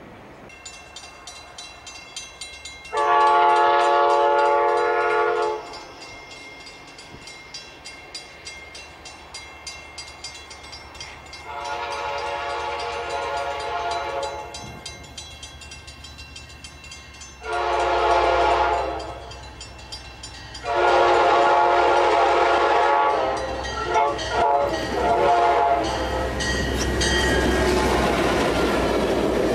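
Amtrak passenger train's diesel locomotive air horn, several tones at once, sounding the grade-crossing signal: long, long, short, long. The last blast is held longest. The locomotive's low rumble grows under the horn, and near the end the train passes close with a rushing noise and wheels clicking over the rail joints.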